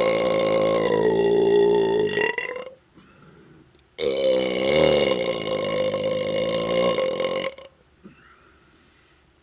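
Huge burps brought up by chugging carbonated orange Fanta: a long one ending about two and a half seconds in, then after a short pause a second long burp of about three and a half seconds.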